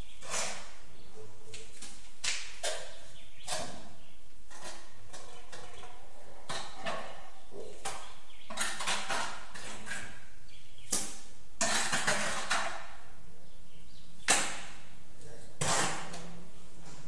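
Trowel scraping and scooping tile adhesive in a bucket: a run of short, irregular scrapes, with one sharp knock late on.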